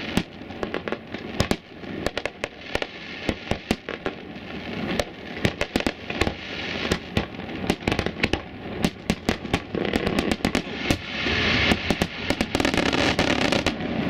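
Aerial fireworks display: a rapid, irregular series of shell bursts going off as sharp bangs and pops, with a thicker spell of crackling a couple of seconds before the end.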